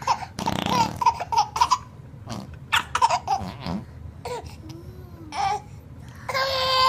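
Baby giggling and laughing in short bursts while being crawled over by another baby, ending in a longer, loud drawn-out squeal.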